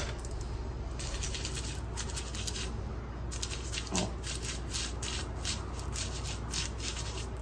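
Toothbrush loaded with toothpaste scrubbing Pandora jewelry in quick, repeated back-and-forth strokes, with a brief pause about a second in.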